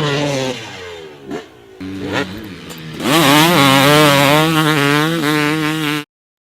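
Dirt bike engine revving, its pitch falling, then climbing again about halfway through and rising and falling rapidly. It cuts off abruptly near the end.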